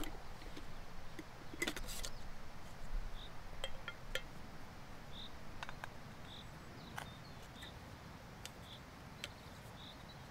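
Light clinks and clicks of camping stove gear being handled: a stove cup and canister being unpacked and fitted together, busiest in the first few seconds. Faint short high chirps repeat about once a second behind them.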